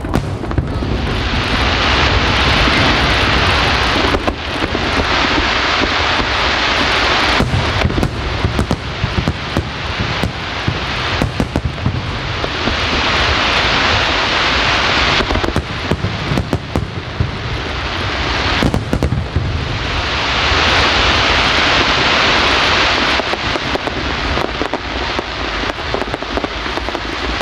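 A fireworks display: shells bursting in repeated bangs and booms over a low rumble. Long spells of dense crackling swell and fade three or four times.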